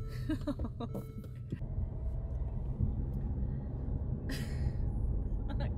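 Low, steady rumble inside a car cabin, with a short hiss about four seconds in and a few faint clicks near the end.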